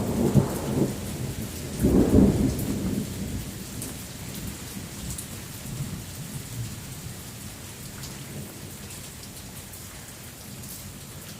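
Thunder rumbling loudly, surging again about two seconds in, then dying away over a few seconds into steady rain.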